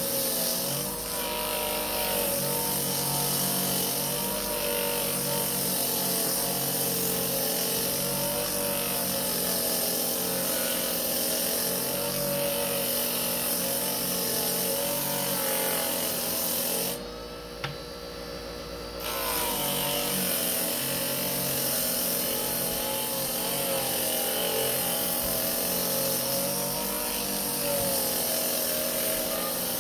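Small bench-top electric motor running a sanding wheel against the edge of a veg-tan leather belt: a steady motor whine under a rasping hiss as the edge is sanded. Just past the middle the rasping stops for about two seconds, leaving only the motor, then starts again.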